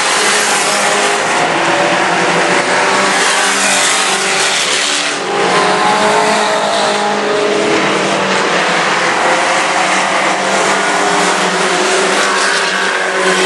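Several mini-truck race engines running hard on a dirt oval, their notes overlapping into a steady, loud drone that rises and falls as the trucks go round.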